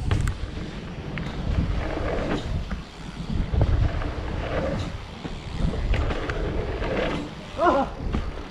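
Wind buffeting a helmet-mounted camera as a mountain bike rolls fast down a dirt trail, with tyre rumble and the knocks and rattles of the bike over bumps and jumps. Near the end a short pitched sound rises and falls briefly.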